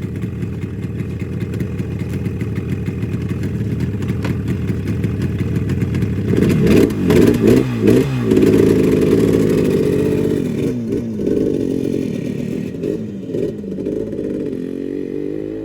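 1975 Yamaha RD350 two-stroke twin engine running, freshly tuned up, revving up and down several times about six to nine seconds in and again more lightly a little later, then rising in pitch near the end.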